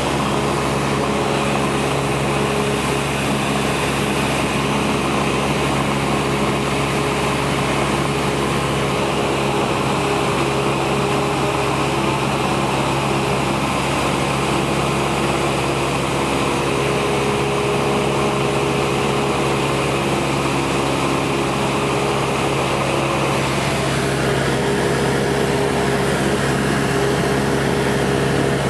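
Cessna 172's four-cylinder piston engine and propeller running steadily in flight, a constant loud drone heard inside the cabin. Its tone shifts slightly about 24 seconds in.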